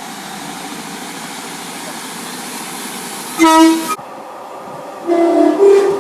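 Train horns over steady rail noise: a short, loud single-note blast about three and a half seconds in that cuts off abruptly, then near the end a horn sounding two notes in turn, the second slightly higher.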